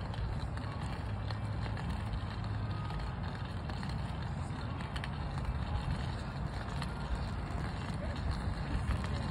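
Steady low rumble of wind buffeting the microphone outdoors, with a few faint ticks of a white cane on stone paving.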